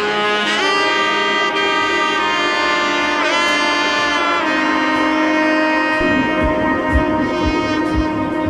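Background music: a saxophone-like wind melody of held notes with a bend in pitch, joined by a steady beat about six seconds in.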